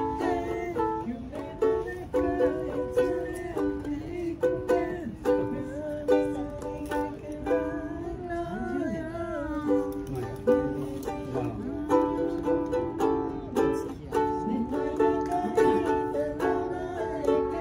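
Background music carried by a plucked-string melody of short, repeated notes.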